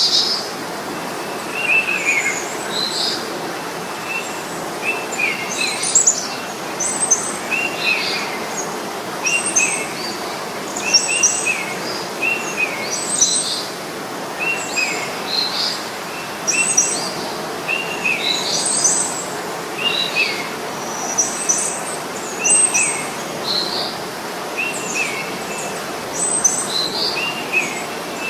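Birds chirping: short high calls repeating about once a second over a steady background hiss.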